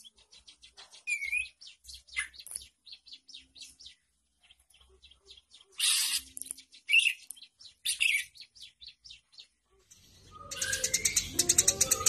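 Emprit kaji (white-headed munia) giving sparse, thin, high-pitched chirps and short calls at a low level. About ten seconds in, background music and denser, louder chirping come in.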